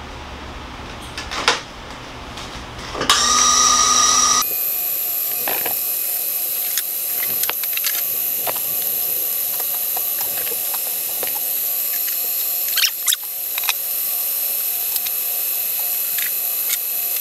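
Small electric motor running steadily with a high whine and scattered light clicks, setting in about four seconds in.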